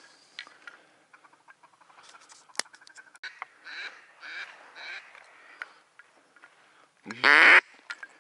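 Ducks quacking as they come in over the water: three short quacks about four seconds in, then one much louder, longer quack near the end.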